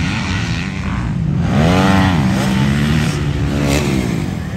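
Motocross dirt bike engine revving on the track, climbing in pitch about one and a half seconds in, then dropping back and running lower.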